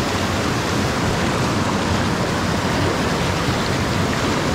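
Rushing river water: a steady, unbroken rush with no let-up.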